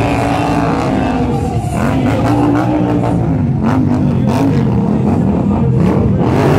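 Stunt motorcycle engines, Indian Scout V-twins, revving up and down again and again as riders perform tricks, with music playing underneath.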